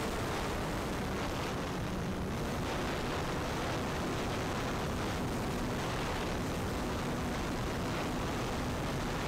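Steady wind rush buffeting a camera microphone mounted on top of the wing of an E-flite Cessna 150 Carbon-Z electric RC plane in flight, with the plane's electric motor and propeller humming steadily underneath.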